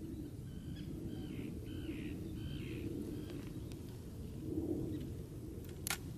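A bird calling four or five times in quick succession in the first three seconds, short harsh calls over a steady low outdoor rumble. A single sharp click near the end.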